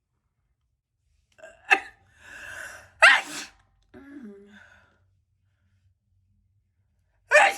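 A woman sneezing. A sharp catch about a second and a half in and a drawn-in breath lead to a loud sneeze about three seconds in, followed by a brief vocal sound. A second loud sneeze comes near the end.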